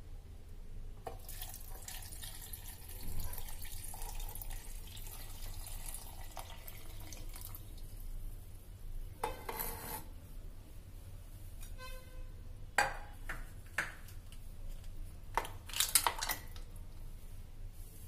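Chilled milk poured from a mug into a stainless steel mixer-grinder jar of mango cubes, splashing steadily for several seconds. After that come a few sharp clinks and knocks against the steel jar, one ringing briefly.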